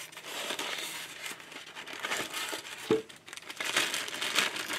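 Clear plastic bag crinkling and rustling as it is handled and pulled off a model freight car, in a dense run of small crackles, with a brief squeak about three seconds in.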